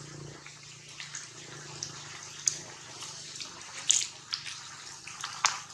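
Rain falling through tree foliage: a steady hiss with scattered sharp drips and drop hits on leaves, a few louder ones about two and a half, four and five and a half seconds in.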